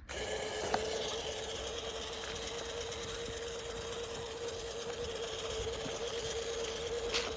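Small RC rock crawler's electric motor and gearbox whining steadily as it crawls over ruts and roots, with a sharp click about a second in and another near the end.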